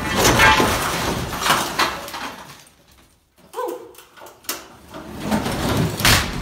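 A brick chimney wall collapses, with a long crash of falling bricks and rubble. A brief cry about three and a half seconds in, then rubble clattering again near the end.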